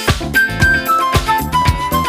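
Background music: an upbeat instrumental with a steady drum beat and a melody line.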